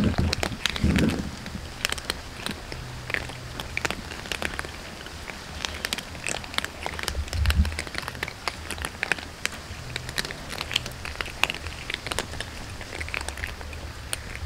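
A group of cats crunching dry kibble: a dense, irregular crackle of many small bites and chews overlapping.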